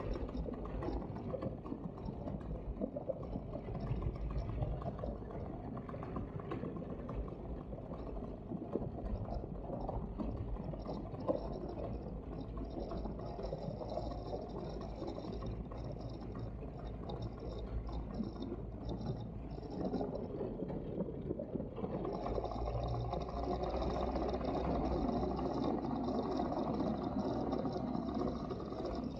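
Wind rushing over the microphone in flight under a paramotor, with the Polini Thor 130 single-cylinder two-stroke engine running steadily beneath it. The sound grows a little louder and fuller about three-quarters of the way through.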